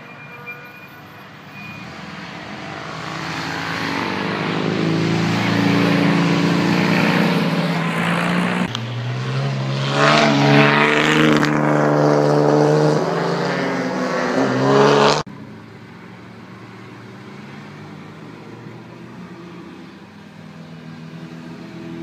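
Engine of a vintage open-cockpit racing car revving as it approaches and accelerates past, growing louder over several seconds and loudest for about five seconds near the middle, then cutting off suddenly. A lower, steadier engine hum remains afterwards.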